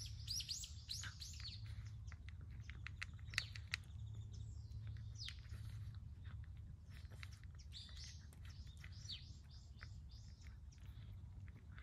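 Small birds chirping in quick runs of short high calls, near the start, around three to four seconds in and again from about seven to ten seconds. Under them a cat crunches dry kibble from a plate, with two sharp clicks about three and a half seconds in.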